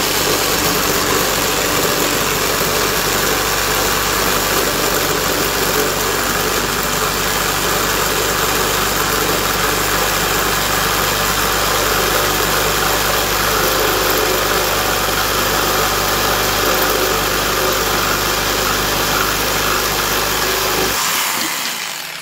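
Kobalt 6-amp orbital one-handed reciprocating saw running hard with a Milwaukee blade, cutting through a block of old, dry glued-up 2x4s: a steady motor whine with blade chatter. Near the end the blade cuts through and the saw is let off and runs down.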